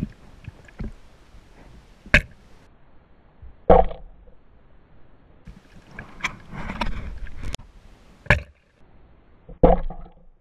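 Sharp knocks and clicks heard underwater, about six spread over several seconds, with a stretch of rustling between them around the middle.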